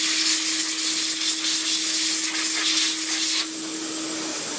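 Vacuum cleaner running with air blasting from its exhaust port to blow debris out of a keyboard: a loud rush of air over a steady motor hum, the air easing a little about three and a half seconds in.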